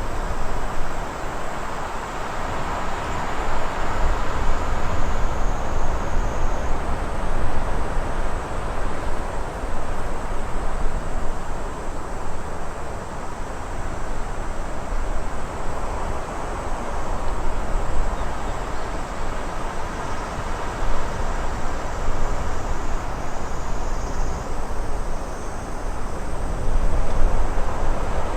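Wind blowing in a steady rush with a deep rumble underneath, swelling and easing every few seconds, as a white-noise nature ambience.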